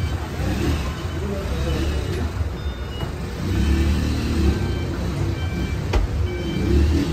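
Steady low background rumble, with faint short high tones scattered through it and a sharp knock about six seconds in.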